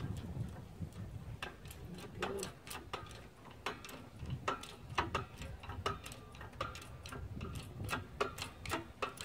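Central Machinery hydraulic bottle jack in a shop press being pumped in short strokes, its handle and pump clicking in quick pairs about every two thirds of a second as it presses a bearing into a GY6 crankcase half.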